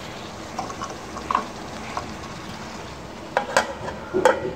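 Okra masala sizzling in a pot with tomato water just added. Near the end come a few sharp clanks as the lid goes onto the pot.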